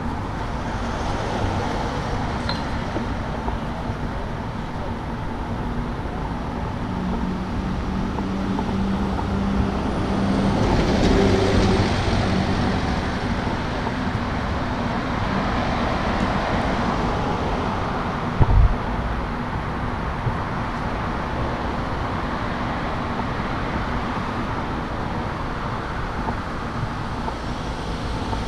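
Road traffic on a city avenue: cars driving past steadily, with one vehicle's engine passing close and loudest about ten seconds in. A brief low thump comes about eighteen seconds in.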